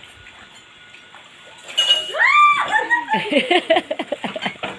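A high-pitched vocal cry starting about two seconds in: one long rise-and-fall, then a quick run of shorter falling calls, about six a second.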